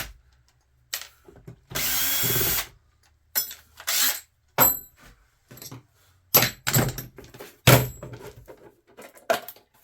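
A small power driver spins for about a second, driving screws out of a plastic power strip, followed by a series of sharp clicks and knocks, some with a brief metallic ring, as the casing and its brass parts are handled.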